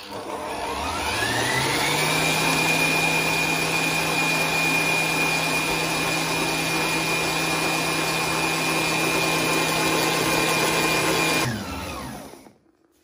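Electric stand mixer's motor driving a balloon whisk through cream, whipping it until stiff. It spins up with a rising whine over the first two seconds, runs at a steady whine, then is switched off about eleven seconds in and winds down to a stop.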